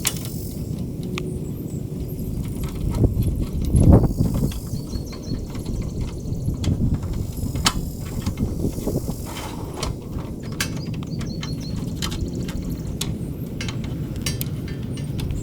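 Small clicks and metal clinks of hands-on work, over a steady low rumble, with a louder thump about four seconds in.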